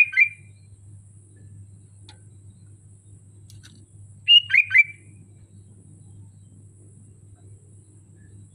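Sooty-headed bulbul (kutilang) singing: two short phrases of three quick whistled notes each, one right at the start and another about four seconds in, over a faint steady low hum.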